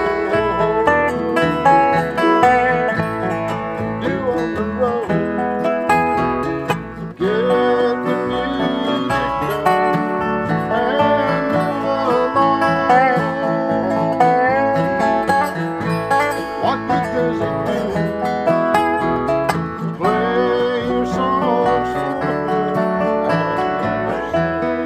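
Live bluegrass instrumental: a flat-top acoustic guitar strumming rhythm while a resonator guitar (dobro) played with a steel slide bar takes the lead, its notes gliding up and down in pitch, over an upright bass.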